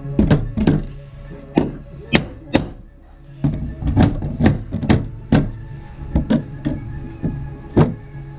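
Claw hammer driving a nail into wooden porch deck boards: a run of sharp strikes, about two a second, with a short pause about a third of the way in.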